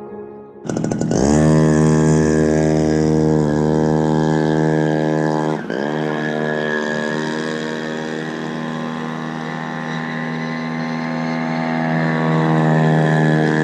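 Small petrol two-stroke engine of a radio-controlled boat running at high revs as the boat races across the water. It comes in about a second in and holds a high, steady note, dipping sharply once about halfway through before climbing straight back as the throttle is eased and reopened.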